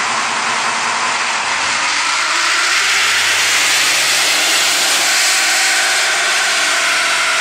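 Ford F-150 PowerBoost's 3.5-litre twin-turbo V6 running under load on a chassis dyno, its note climbing slowly, over a loud rushing noise from the spinning tyres on the rollers.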